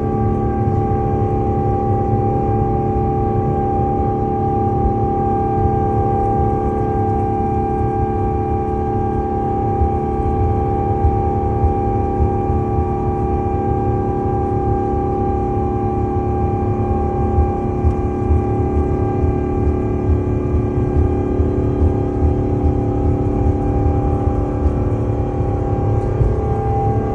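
Airbus A350's Rolls-Royce Trent XWB engine at takeoff thrust, heard from inside the cabin during the takeoff roll: a steady drone of several held tones over a low rumble.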